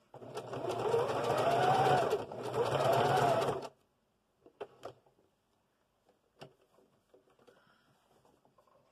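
Electric sewing machine doing zigzag stitching in two short runs, its motor pitch rising and falling as the speed changes while the fabric is turned. It stops after about three and a half seconds, followed by a few light clicks.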